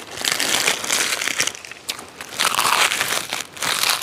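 Dry roasted seaweed sheets (gim) crinkling and crackling as they are pulled apart and handled close to the microphone, in two louder spells.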